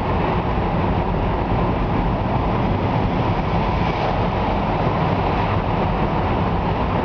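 Steady tyre and engine noise of a moving car, heard from inside the cabin, an even low-heavy rumble with no change as the car drives out of a tunnel.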